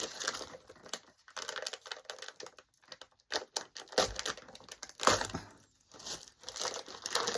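Packaging crinkling, rustling and tearing as a parcel is opened by hand, in irregular bursts, with a couple of low thumps about four and five seconds in.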